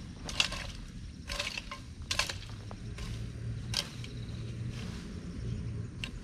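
Long-handled hoe chopping and scraping through weeds and soil: about five short, sharp strokes at irregular intervals, over a low steady rumble.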